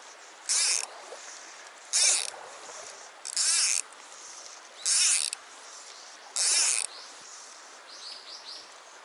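Fly line swishing through the air on the strokes of false casting, five even whooshes about a second and a half apart, over the steady rush of a shallow stream. A few faint high chirps come near the end.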